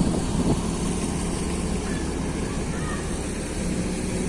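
Bus engine running steadily with a low, even rumble.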